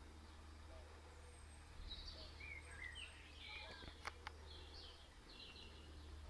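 Faint outdoor background with small birds chirping in short calls from about two seconds in, over a low steady hum. Two faint clicks come near the middle.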